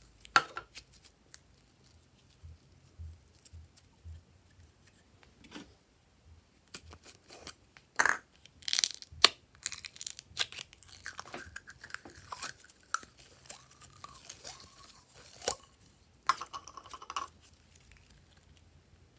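Slime being squeezed out of small plastic jars and worked between the fingers: irregular sticky clicks, crackles and squelches, with a few short squeaky sounds. It grows quieter near the end.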